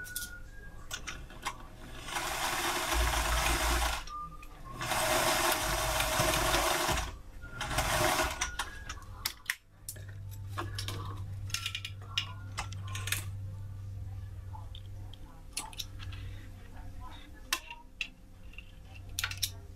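Electric sewing machine stitching in three short runs: two of about two seconds and a brief one just after, each starting and stopping abruptly. For the rest of the time there is a low steady hum with scattered small clicks as the fabric and metal strap hardware are handled.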